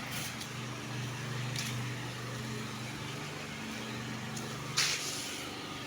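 A steady low mechanical hum, with a short hissing rustle near the end.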